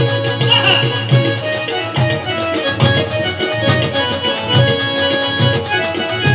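Live instrumental interlude of a Marathi folk-devotional band: hand drums such as tabla or dholki keep a steady beat under sustained keyboard notes, heard through stage PA speakers.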